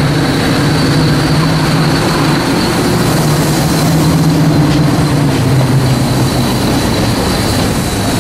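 Class 55 Deltic diesel locomotives' Napier Deltic two-stroke engines running with a loud, steady low drone and a steady high whine above it.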